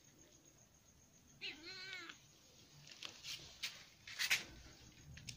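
A cat meows once, a short call under a second long, about one and a half seconds in. A few soft clicks and a brief rustle follow, the loudest near the end.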